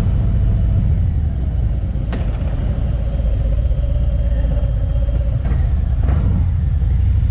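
Wind rumble on a mic worn under the rider's hoodie while riding a motorcycle at about 20 mph, a loud, steady low rumble. A few faint ticks about two seconds in and near the end.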